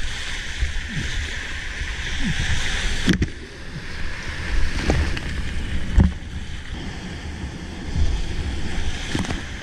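Water splashing and hissing around a sea kayak being paddled through choppy, wind-driven waves, with wind buffeting the microphone. Two sharp knocks, about three and six seconds in.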